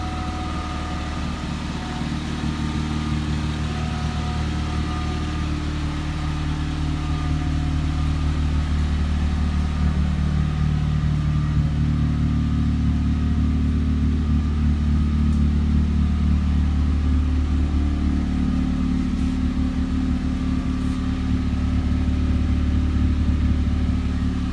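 Honda Civic engine idling steadily through an aftermarket K-Tuned exhaust while it warms up after a cold start. It grows a little louder about a third of the way in.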